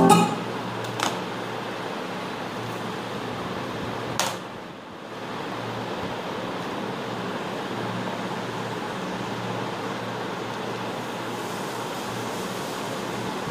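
Steady room hum and hiss, with a short click about a second in and a louder click about four seconds in.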